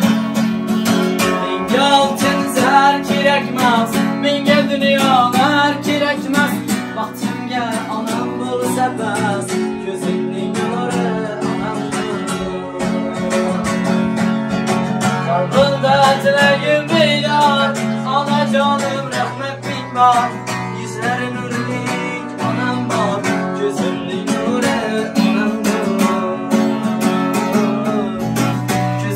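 Acoustic guitar strummed as a song accompaniment, with a man singing over it.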